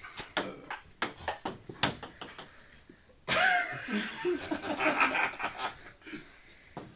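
Table tennis rally: the ball clicks off paddles and table in quick succession for about three seconds. Then the point ends in a burst of shouting and laughter.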